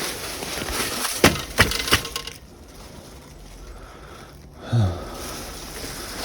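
Dry wood and brush cracking and snapping, several sharp cracks in the first two seconds, then quieter, with a short low thud-like sound near the end.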